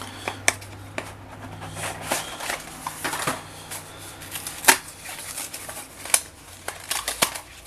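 Cardboard and paper being handled: rustling and light irregular clicks as printed leaflets are taken out of a phone box, with a few sharper knocks.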